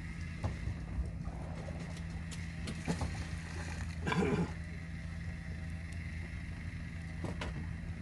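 Fishing boat's engine running with a steady low hum, with a few light clicks and knocks and a short voice-like sound about four seconds in.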